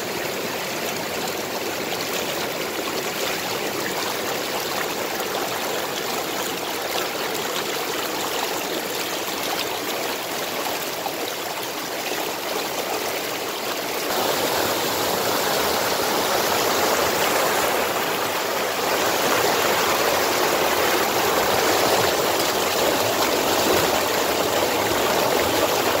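Shallow rocky creek rushing over stones: a steady hiss of running water that grows louder about halfway through.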